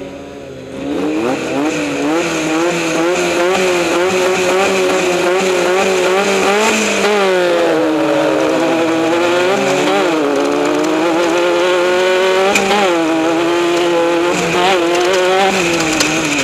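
Off-road race vehicle's engine running hard, getting louder about a second in, its pitch wavering up and down with the throttle, with several sharper dips and climbs.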